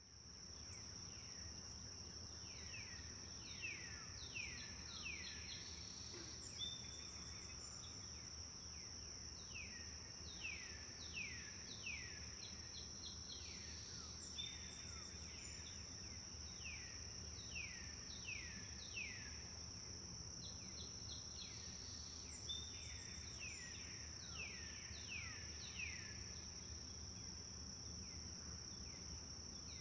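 Forest birds singing: repeated phrases of quick, downward-sliding whistled notes, with short trills between them, over a steady high insect drone and a low rumble. The sound fades in at the start.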